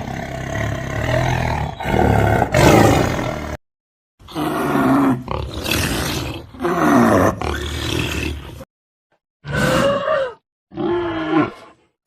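A big cat roaring and growling, in four separate clips cut apart by short silences; the last two clips are shorter.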